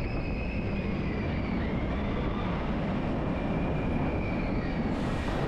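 Expedition Everest's Vekoma roller-coaster train rolling along its steel track: a steady rumble of the running wheels, with a thin high tone held over it for most of the time.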